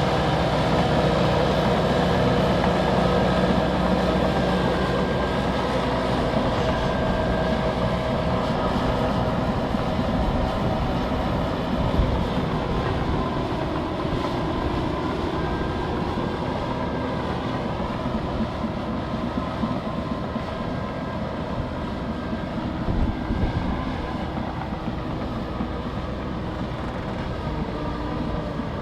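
Large Liebherr crawler bulldozers at work: heavy diesel engines running under load with the steady grinding run of steel tracks. A sharp knock comes about twelve seconds in and a few more near the end, and the overall level eases slightly toward the end.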